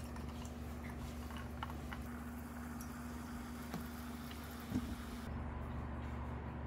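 Sparkling water poured from a plastic bottle into a glass pitcher of fruit syrup, with faint fizzing and small ticks of bubbles over a steady low hum. About five seconds in the pouring cuts away and only the hum goes on.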